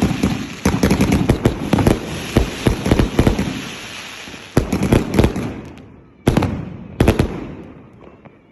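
A consumer firework cake with 1.2-inch and 2-inch tubes firing: a rapid, dense string of shots and bursting reports with crackle, thinning out after about four seconds into four separate bursts about a second apart, each trailing off in fading crackle.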